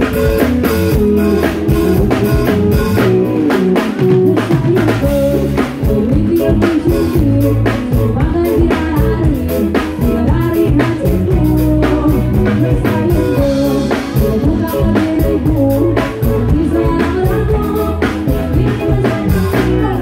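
Live band music played loud through a PA system: a drum kit keeping a steady beat under electric guitar, with a woman singing into a microphone.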